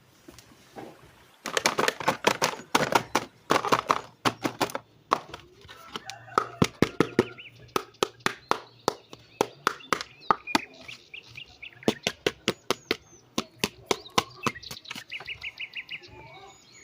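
Many sharp clicks and taps of hard plastic in quick, uneven succession, the sound of an action figure's plastic packaging being handled and opened, with faint chirp-like tones in between.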